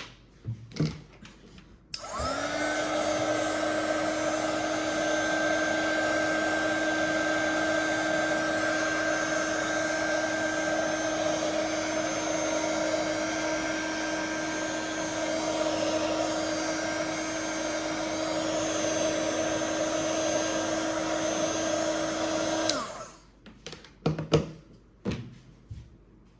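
Electric hot-air blower switched on about two seconds in: its motor spins up quickly to a steady hum over rushing air, runs for about twenty seconds, then is switched off. It is heating the adhesive under a phone's outer screen to soften it. Light clicks and taps of handling before and after.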